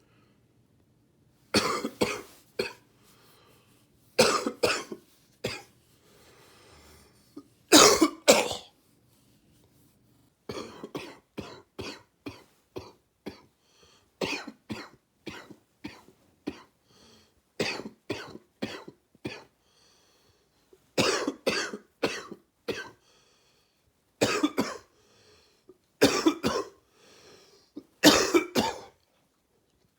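A man coughing in repeated wet, gaggy fits from a cold. There is a long run of short coughs in the middle, and faint breaths between some of the fits.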